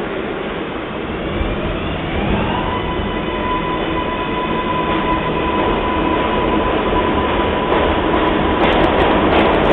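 New York City subway train running on the tracks: a steady rumble, and an electric motor whine that rises in pitch about two seconds in and then holds steady. The noise grows louder throughout, with sharp clicks and rattles near the end.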